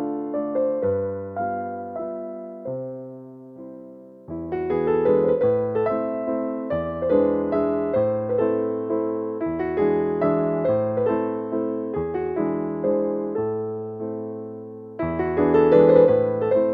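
Background music: a gentle piano melody over chords, thinning out briefly a few seconds in and then returning fuller.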